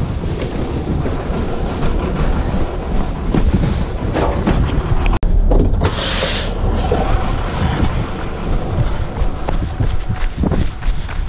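Wind buffeting a chest-mounted action camera's microphone while the wearer walks carrying plastic trash bags, with footsteps and rustling of bags and clothing; a short sharp hiss about six seconds in, then footsteps on gravel near the end.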